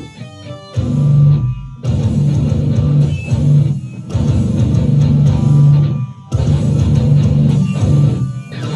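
Heavy metal riff on a distorted electric guitar: a thin, quieter figure at first, then a heavy low chugging riff from about a second in, cut by short stops every two seconds or so.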